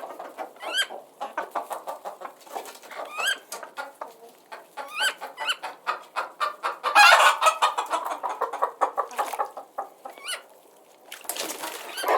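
Several chickens clucking in a rapid, continuous chatter, with a few short higher rising calls and a louder burst of clucking about seven seconds in.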